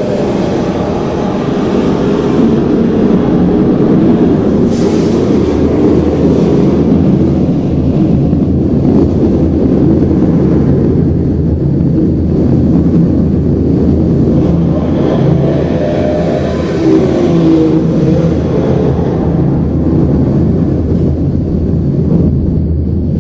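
Lamborghini engine sound in a show, a loud, steady, dense low rumble with the revs briefly rising and falling now and then.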